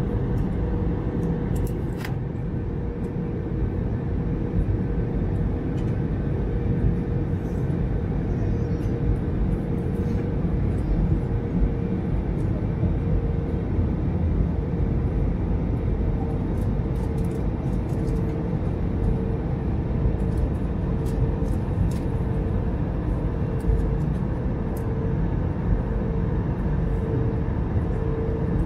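Steady low rumble of an Airbus A321neo airliner heard inside the passenger cabin, with a faint hum near the top of the rumble that starts pulsing about once a second partway through, and a few faint ticks.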